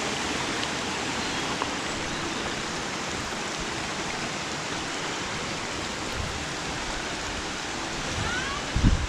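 Steady rush of water flowing over the rocks of a shallow beck. A short low bump comes near the end.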